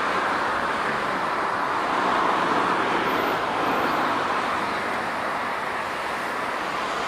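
Jet airliner engines: a steady rush of noise that slowly fades.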